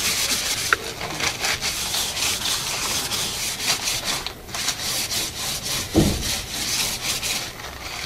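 A dry paper towel rubbed quickly back and forth over a placemat to dry it, a steady run of scrubbing strokes. About six seconds in there is a short low falling note.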